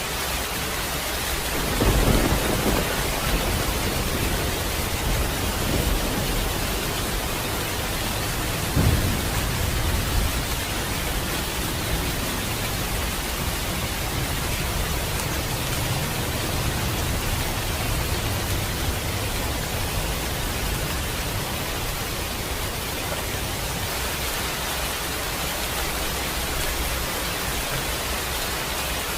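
Steady rain falling, with thunder rumbling: two louder rolls about two and nine seconds in, and a fainter low rumble later on.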